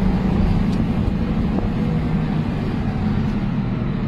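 Motor vehicle driving at steady speed: engine running with a low hum and road and wind noise, unchanging throughout.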